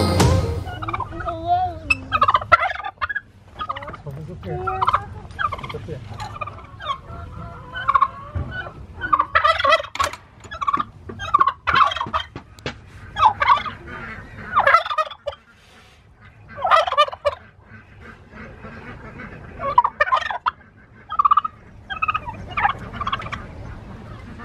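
Royal Palm tom turkey gobbling over and over, in short rattling bursts every second or two, with a couple of brief pauses.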